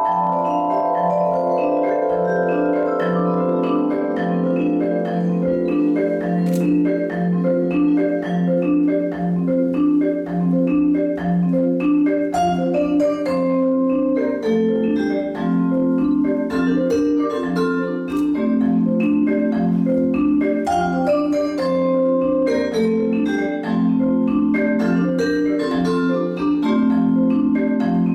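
Vibraphone and marimba playing together, struck with mallets: a repeating low note figure keeps a steady pulse under quick runs of higher ringing notes.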